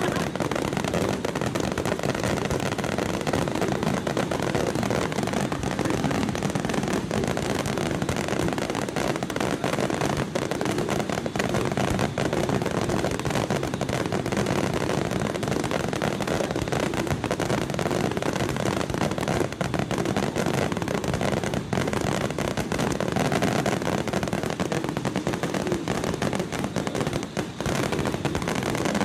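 Aerial fireworks going off in a dense, continuous barrage: many rapid bangs and crackles running together with no break.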